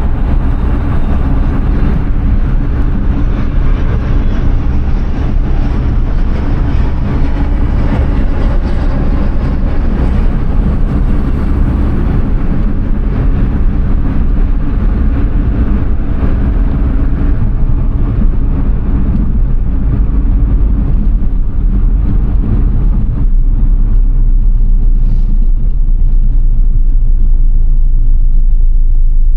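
Suzuki Alto Works HA11S kei car driving: a steady engine and road-noise rumble with a few steady low tones in it. The higher hiss thins out about three-quarters of the way through.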